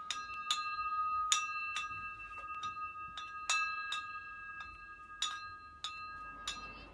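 The glass globe shades of a swaying ceiling pendant light clink against each other, about a dozen irregular strikes, each ringing on like a small bell. The strikes grow fainter toward the end as the lamp, set swinging by an earthquake tremor, settles.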